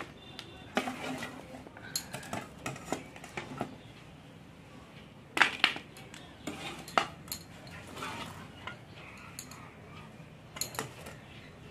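A metal spoon clinking and scraping against a steel pot as syrup-soaked pitha are lifted out of the sugar syrup, in scattered light knocks, the sharpest about five and a half, seven and ten and a half seconds in.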